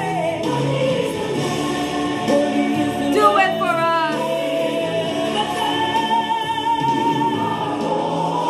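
Gospel choir music with sung vocals and sustained notes. A little after three seconds in, a voice sings a quick wavering run of notes.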